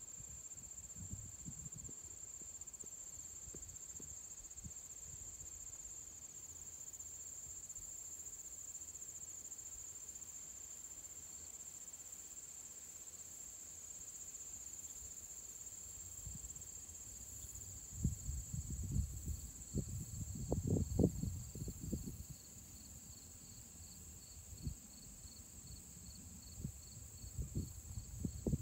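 Steady high-pitched trilling chorus of crickets and other insects, joined in the second half by a slower insect chirp repeating about twice a second. About two-thirds of the way through, a few seconds of low rumbles and knocks on the microphone are the loudest sound.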